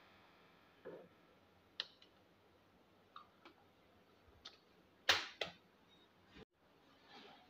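Scattered light taps and knocks of hands and rolled dough on a floured countertop, the loudest two a little past halfway as the rolled dough sheet is flipped and laid back down.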